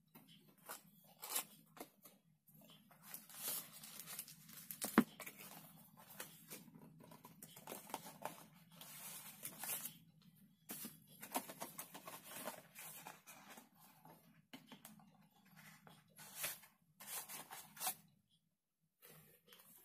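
Paper and cardboard packaging rustling and scraping in irregular handling noises as leaflets and a small paper packet are drawn out of a small black box, with one sharp tap about five seconds in.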